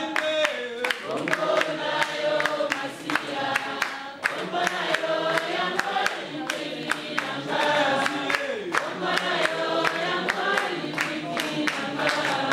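A group of people singing a song together, with steady rhythmic hand clapping.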